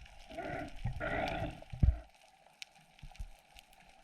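Two muffled, breathy rushes of a freediver's breathing or exhaled bubbles, each about a second long, followed by faint scattered underwater clicks and crackle.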